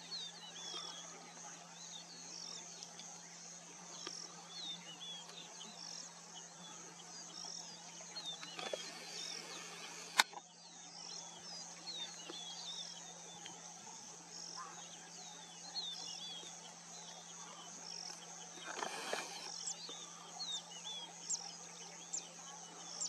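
Insects trilling steadily, with a high note pulsing about once a second, under scattered small bird chirps. A low steady hum runs beneath, and a single sharp click comes about ten seconds in.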